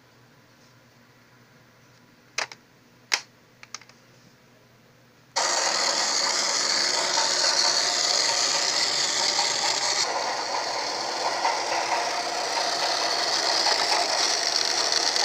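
Battery-powered plastic toy train's motor and gearbox whirring steadily as it runs along plastic track, starting abruptly about five seconds in. A few sharp plastic clicks come before it.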